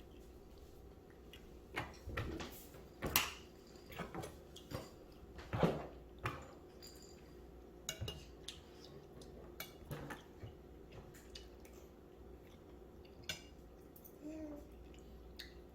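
Kitchenware being handled: scattered clinks and knocks of cutlery and dishes, irregular and unhurried, with a few louder knocks in the first half. There is a brief chirp-like rising and falling sound near the end.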